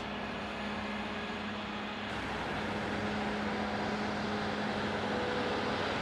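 Fendt 10T IdealDrive combine harvester running as it spins round at the end of a run. A steady machine drone with a low hum, growing a little louder after about two seconds.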